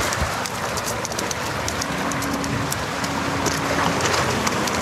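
Steady hiss of sea surf washing over shoreline rocks, with a fine crackle of foam and spray.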